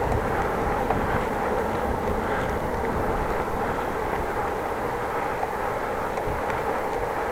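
Bicycle being ridden: a steady rumble of wind and rolling tyres with a few faint, irregular ticks. The ticks are the ticking noise the rider says is still there even after tightening his bike stand.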